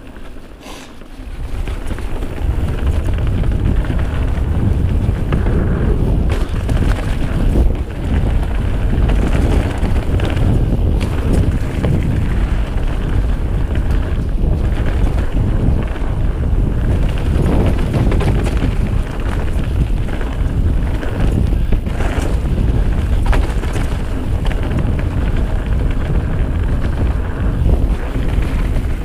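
Wind rushing over the microphone and the rumble and rattle of a full-suspension Giant Trance Advanced mountain bike riding fast down a dirt trail, with scattered knocks from bumps. The noise swells about a second in as the bike picks up speed.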